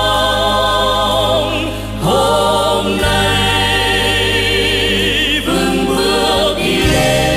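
Background music: a choir singing long held chords with vibrato, changing chord every couple of seconds.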